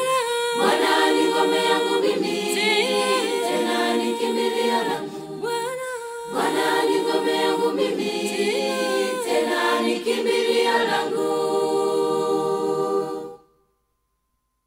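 Unaccompanied choir singing a Swahili gospel song, several voices together; the song ends about 13 seconds in and the sound stops abruptly.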